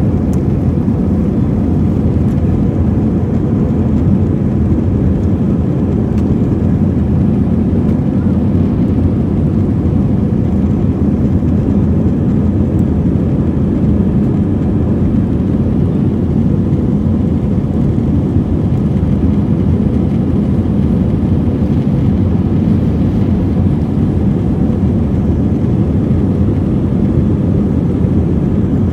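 Steady low roar inside the cabin of a climbing Airbus A320: jet engine and airflow noise heard from a window seat beside the wing, unchanging throughout.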